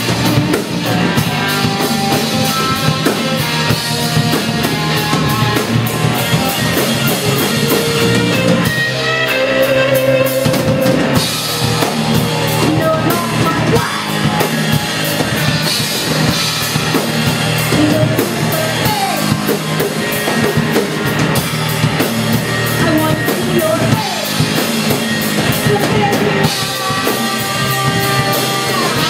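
Live rock band playing loudly: electric guitar, drum kit and sung vocals. The sound thins out briefly about nine seconds in before the full band comes back.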